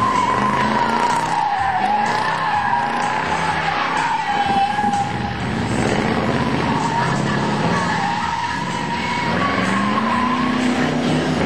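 1996 Chevrolet Impala SS doing donuts: the rear tyres squeal in a wavering tone while the 5.7-litre LT1 V8 is held at high revs, the engine note climbing near the end.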